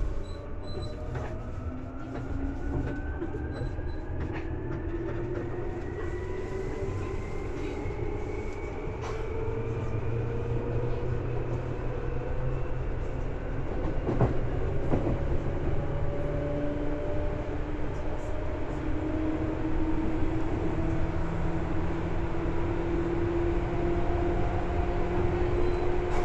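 Seibu 2000 series electric train running, its motor whine rising slowly in pitch as the train gathers speed, over steady wheel and rail noise with occasional clicks.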